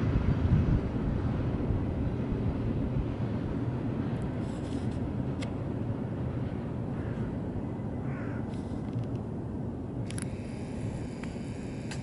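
Low rumble of vehicle traffic, loudest at the start and slowly fading, with a few faint clicks near the end.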